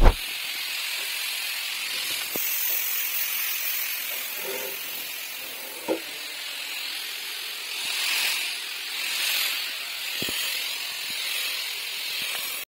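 Compressed-air spray gun hissing steadily as it sprays adhesive over the felt layer of a spring mattress, swelling a few times. A sharp knock at the start and a few light knocks.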